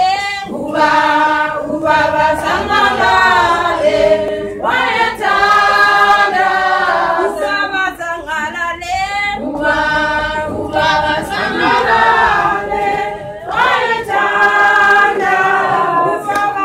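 Women's church choir singing a cappella in harmony, unaccompanied voices in phrases of about four seconds with short breaths between them.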